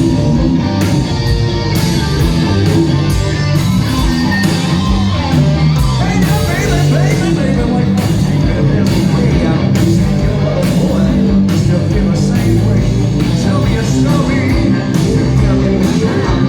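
Live rock band playing loudly: electric guitar over a steady drum beat.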